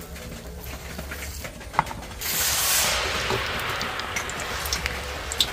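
Vegetable fritter batter going into hot oil in a wok: about two seconds in a sudden loud sizzle breaks out and settles into steady crackling frying. Before it, a sharp click of a metal ladle against the batter bowl.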